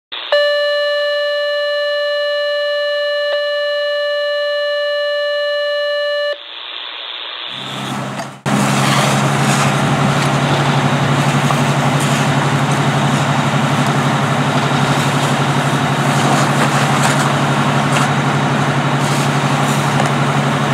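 A steady electronic tone, held for about six seconds, then a short rising whoosh. From about eight seconds in, a fire engine's engine runs steadily as it pumps water to the hose lines, under the even hiss of the hose streams.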